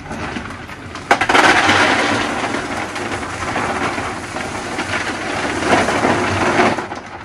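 Water softener salt pellets pouring from a plastic bag into a plastic brine tank: a dense stream of small impacts that starts abruptly about a second in and runs for about six seconds, after a rustle of the bag being opened.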